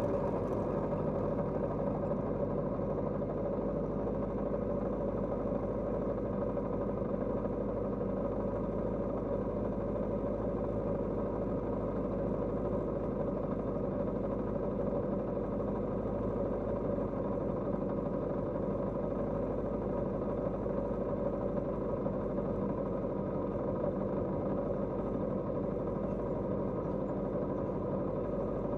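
Kawasaki GPZ550's air-cooled inline-four engine running at steady revs, its pitch holding level throughout.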